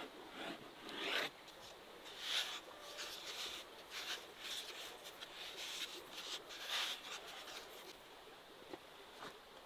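Hands working soft dough on a floured wooden board: irregular soft rubbing and scraping strokes, the strongest about one, two and a half and seven seconds in.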